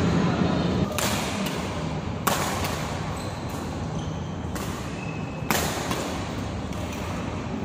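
Badminton racket strokes on a shuttlecock: three sharp cracks, about a second in, a second later, and again near the end of the rally, in a large hall. Faint short squeaks sound in between.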